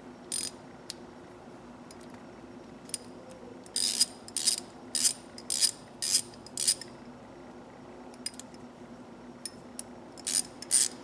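A freshly reassembled, ungreased 1/4-inch drive socket ratchet being worked back and forth, its pawl clicking dry, metal on metal. There is one short burst of clicks near the start, about six bursts in quick succession around the middle, and more near the end.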